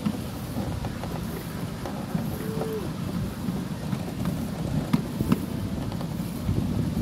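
Ride-on miniature steam railway train running along its track, heard from the car right behind the locomotive: a steady low rumble and clatter with scattered clicks, and a couple of sharper knocks about five seconds in.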